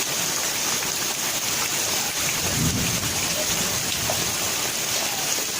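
Steady rain falling, an even hiss, with a brief low thump about two and a half seconds in.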